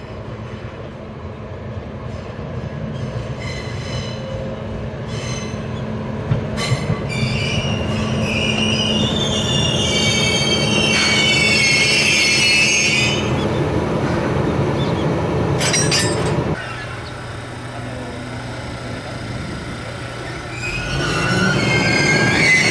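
HD300 hybrid shunting locomotive moving slowly through the yard: its wheels squeal high-pitched over curved track and points, over a steady engine hum. The squealing runs for several seconds in the first half and starts again near the end, with a couple of sharp clicks in between.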